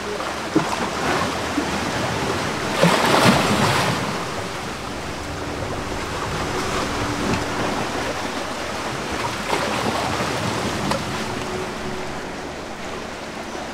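Sea waves washing in along the shore, with a louder rush of surf about three seconds in.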